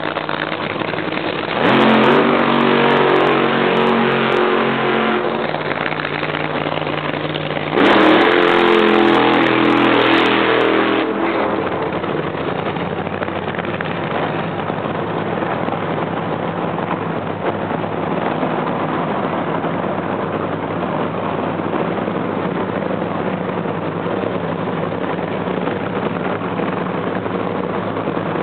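Top Fuel Funny Car engines, supercharged nitromethane-burning V8s, running loudly. There are two louder bursts of about three seconds each, about two seconds and eight seconds in, over a steady engine drone.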